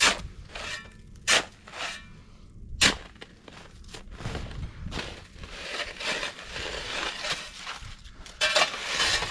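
Firewood being dug out of a snow-covered pile: three sharp knocks about a second and a half apart, then a longer stretch of crunching and scraping.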